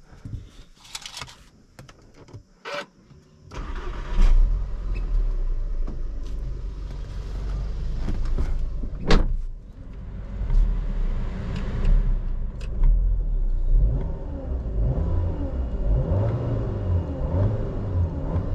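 A few clicks, then a 2016 Volkswagen Jetta engine starts about three and a half seconds in and keeps running with a steady low rumble. There is a sharp brief noise around nine seconds in.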